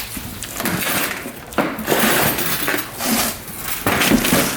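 Hard plastic air-intake parts clattering and crinkling as the stock intake is worked loose and pulled from the engine bay, in irregular bursts with louder ones about a second and a half in and near the end.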